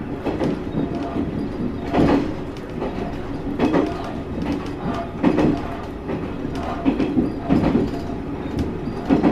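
Diesel railcar running along the line: a steady running hum, with the wheels clacking over rail joints about every one and a half to two seconds.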